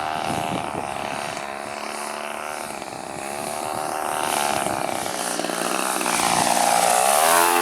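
Gas two-stroke engine of a Seagull Models RV-8 RC plane flying low on a landing approach, its note drifting as it passes and growing louder, then rising sharply in pitch near the end as the throttle is opened.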